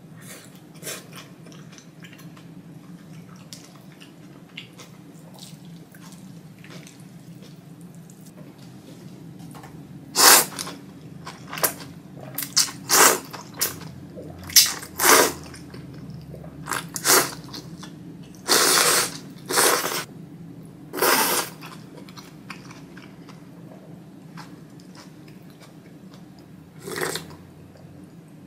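A person slurping thick ramen noodles in a run of loud, wet slurps, one drawn out for about a second, with quieter chewing before and after and one more slurp near the end.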